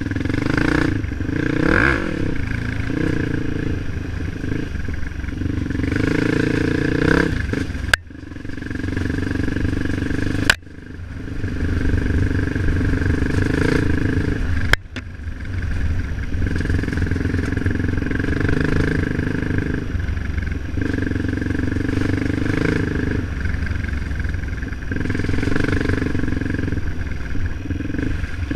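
Motorcycle engine running along a dirt trail, its pitch rising and falling with the throttle. Three sharp clicks come partway through, each followed by a brief dip before the engine sound picks up again.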